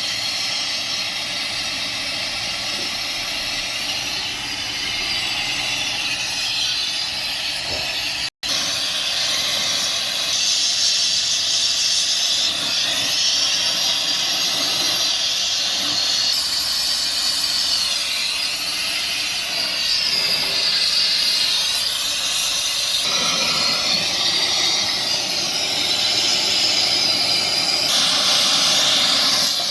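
Electric welding arc sizzling steadily, with one brief dropout about eight seconds in.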